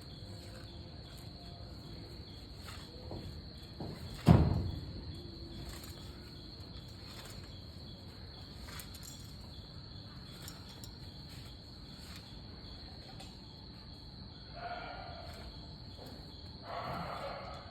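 Steady high-pitched drone of crickets, with one heavy thud about four seconds in.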